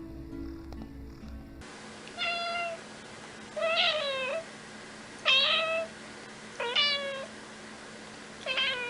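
A cat meowing over and over, five loud meows about a second and a half apart, each a short pitched call.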